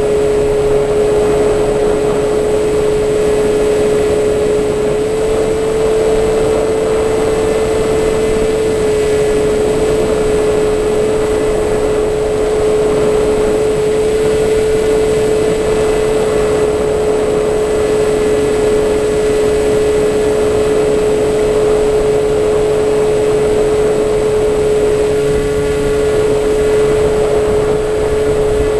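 Electric motor and propeller of an FPV model aircraft, heard from the camera on board: a steady whine mixed with wind rush. The pitch rises slightly a couple of times as the throttle changes.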